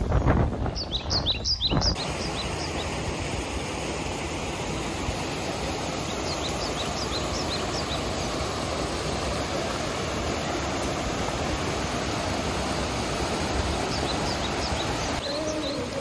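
Wind buffeting the microphone for the first couple of seconds, then the steady rush of a small waterfall pouring over rock. Birds chirp above it in short falling notes, at the start, about midway and near the end.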